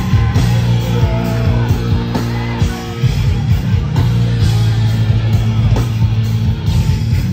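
Hardcore band playing live at full volume: heavily distorted guitars and bass with pounding drums.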